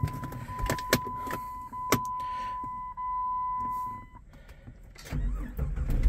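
Jeep Grand Cherokee WJ failing to start, a sign of a bad neutral safety switch: a steady high warning tone and several sharp clicks from the ignition key and gear selector. About five seconds in, the straight-six engine starts and runs with a low rumble.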